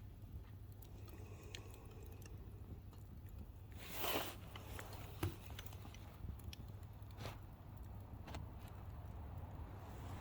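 Campfire burning, with scattered small crackles and pops over a low steady rumble and a louder brief rustle about four seconds in.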